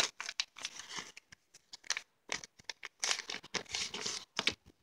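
Christmas gift-wrapping paper torn and crinkled by hand as a small present is unwrapped, in irregular rustling crackles with a short pause about two seconds in.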